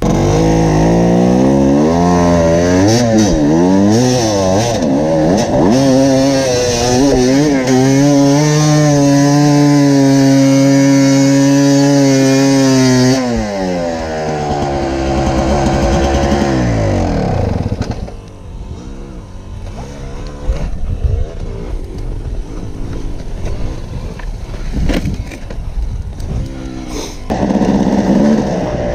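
Two-stroke enduro dirt bike engine revving up and down, then held at high revs for several seconds before dropping off about 13 seconds in. After a quieter, uneven stretch the engine comes up loud again near the end.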